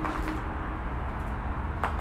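Footsteps on gritty ground, two crisp steps, one at the start and one near the end, over a steady low rumble.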